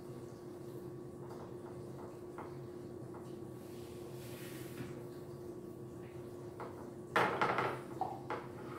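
Faint scrapes of a spatula spreading sausage in a glass baking dish, over a steady low hum; about seven seconds in, a louder clatter of a utensil knocking against glass dishes.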